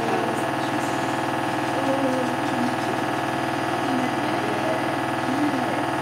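Hoover H-Wash 300 washing machine spinning its drum at high speed, with the display set to 1600 rpm: a steady motor whine and drum hum with a fine, fast pulsing that does not change.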